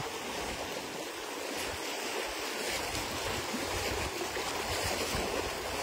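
Shallow water rushing in a strong current, a steady wash with splashing as someone wades through it.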